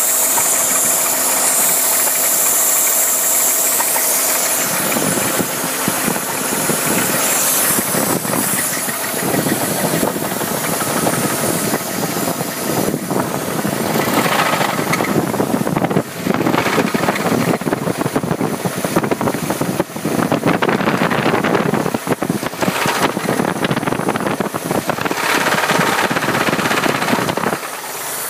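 A Chevrolet Impala's 3.8-litre V6 running with a rapid knocking over the engine noise, a knock that the owner links to the rockers. For the first few seconds mostly a hiss is heard, then the knocking comes in strongly about five seconds in and carries on until just before the end.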